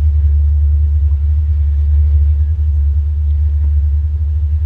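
A motor cruiser's engine running steadily under way, a constant low rumble.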